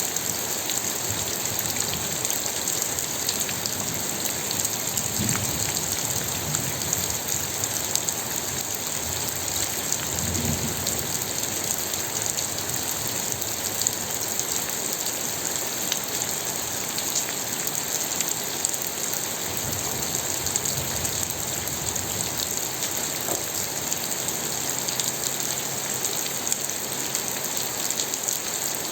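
Steady rain falling, a dense patter of drops hitting a surface.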